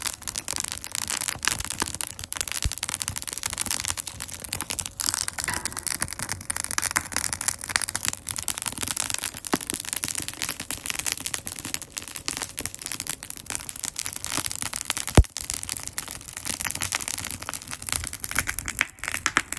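Fire crackling and popping in a Solo Stove fire pit, dense sharp snapping throughout, with one louder pop about fifteen seconds in.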